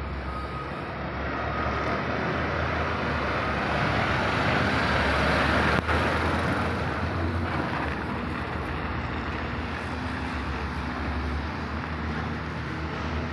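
Diesel engines of MAN trucks driving past at close range: a tractor unit hauling a tipper semi-trailer passes, loudest about five to six seconds in, and a dump truck follows near the end.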